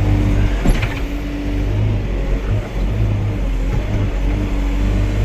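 Excavator's diesel engine running steadily, with a tone from the machine swelling and dropping every second or so as it works. One sharp knock comes just under a second in.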